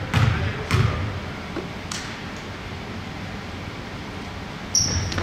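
A basketball bouncing on a hardwood gym floor three times in the first two seconds as a player dribbles before a free throw. Near the end come a thud and short, high sneaker squeaks on the court.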